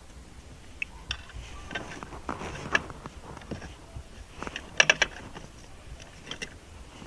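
Scattered metallic clicks and clinks of bolts and hand tools being handled while fitting the handbrake lever's mounting bolts, with a quick run of three sharp, ringing clinks about five seconds in.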